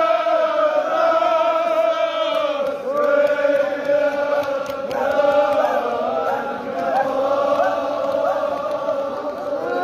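Crowd of men chanting a Kashmiri mourning lament (marsiya/noha) together, in unison on long held notes, with individual voices calling out over it.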